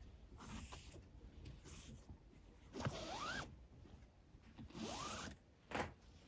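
4 mm nylon paracord sliding and rasping as it is drawn through a macramé knot, twice, each pull with a short rising squeak, then a light click near the end.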